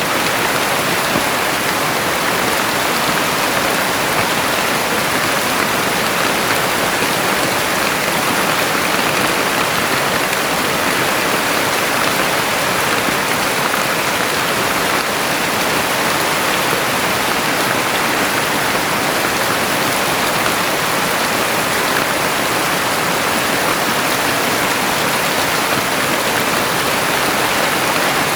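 Heavy rain falling steadily in a dense, even hiss, with no single drops or thunder standing out.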